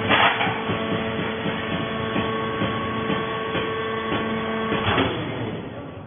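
Vertical hydraulic baler running under load as the press platen compresses coconut fibre: a steady mechanical hum with several fixed tones, and loud metal clanks at the start and again about five seconds in, where the hum cuts off suddenly.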